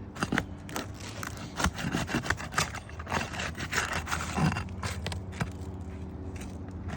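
Asphalt shingle being pried up with a roof snake shingle-lifting tool: a run of scrapes, cracks and clicks as the sealant bond gives and the brittle shingle tears. The prying stops about five and a half seconds in, leaving a steady low hum.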